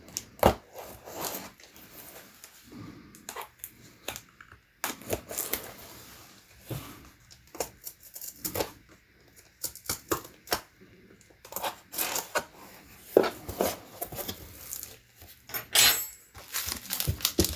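A replacement laptop screen's shipping box and packaging being opened and unpacked by hand: irregular rustling, tearing and clicking of cardboard and plastic, with a few louder handling knocks.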